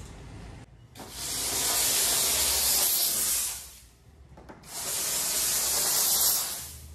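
Steam car-wash gun hissing as it blasts steam onto a shampooed car bonnet, in two long bursts of about two seconds each with a short pause between.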